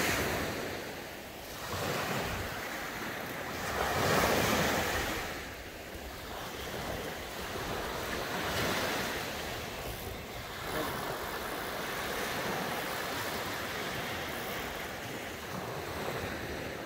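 Small surf waves washing up onto the beach in swells, loudest about four seconds in, with wind buffeting the microphone.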